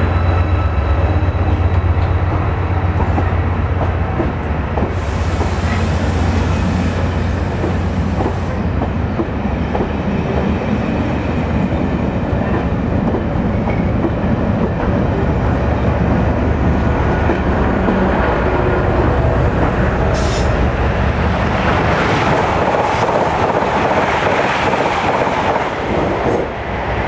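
Class 68 diesel locomotive running at low speed, its Caterpillar V16 engine throbbing deeply for the first several seconds. Then coaches roll past with clattering wheels and a brief high wheel squeal about twenty seconds in, followed by louder rail clatter.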